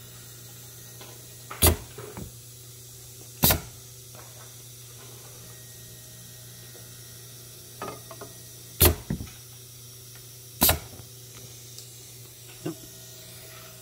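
Air-driven stamping cylinder of a semi-automatic soap stamper stamping blanks on its conveyor: four short, sharp strokes in two pairs, under two seconds apart, with a few lighter clicks between. A steady low hum from the running machine lies under it all.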